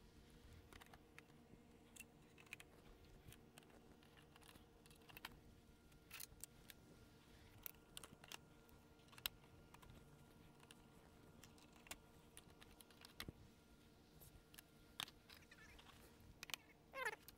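Near silence with faint, scattered clicks and light knocks from composite garden-bed boards being handled and fitted into plastic stacking brackets. A short falling squeak comes near the end.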